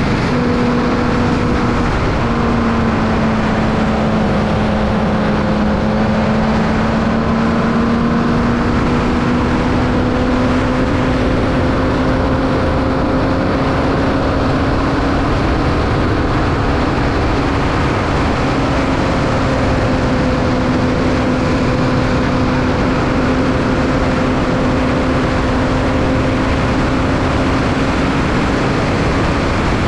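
Onboard sound of a Formula Vee racing car's 1200cc Volkswagen air-cooled flat-four engine running steadily over a loud rushing noise; the engine note dips slightly about two seconds in, then climbs slowly and holds.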